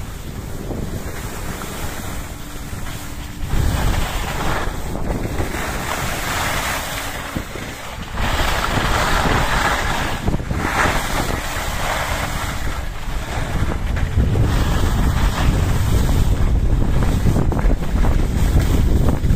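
Wind buffeting the microphone of a camera carried by a downhill skier, with the hiss and scrape of skis on the snow. It steps up in loudness about eight seconds in and again in the last few seconds as speed builds.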